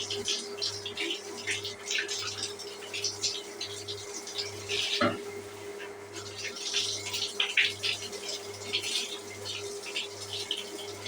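Shower water running and splashing irregularly in a small tiled room, over a steady low hum that pulses about every half second. There is one sharper knock about five seconds in.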